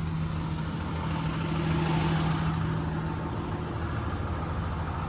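2009 Blue Bird school bus's Caterpillar diesel engine idling steadily, its low hum changing a little after three seconds in.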